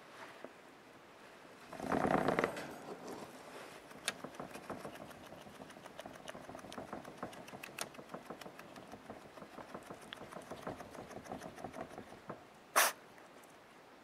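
Pet skunk stirring on a towel inside its log bed: a louder rustle about two seconds in, then a long run of small rapid clicks and scratches, and one sharp, brief noise near the end.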